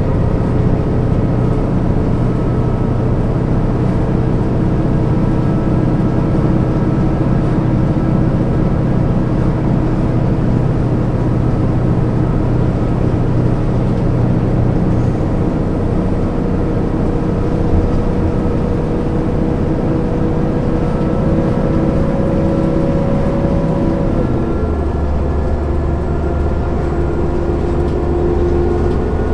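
MAN NG 262 articulated city bus running under way, its diesel engine and drivetrain giving a steady drone with several whining tones. About 24 seconds in the tones drop suddenly in pitch and a deeper rumble takes over.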